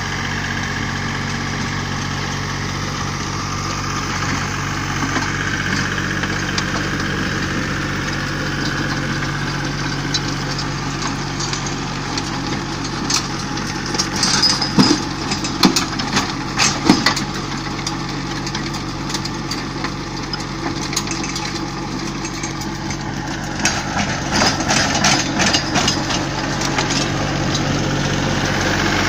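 Iseki compact tractor's diesel engine running steadily while it drives a rear separation rotary tiller through stony soil. Bursts of sharp clicks and knocks come in the middle and again near the end.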